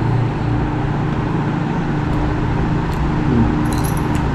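Steady, loud rushing noise with a low drone underneath, and a few faint high clicks near the end.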